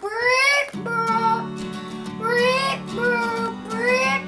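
Music: a rising siren-like whoop repeats about every second and a half, and about a second in a steady low chord of held tones joins it.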